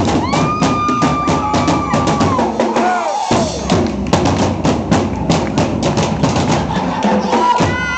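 A drum kit played live with fast, dense kick and snare hits, over a recorded track whose held tones glide up and down in pitch.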